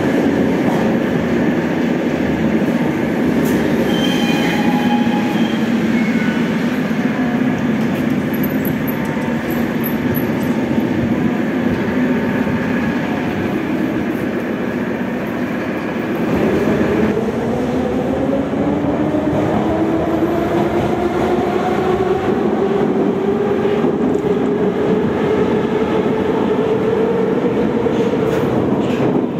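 Metro train running, its motors whining over the rumble of the wheels. The whine sinks slowly in pitch, then about halfway through rises steadily as the train picks up speed.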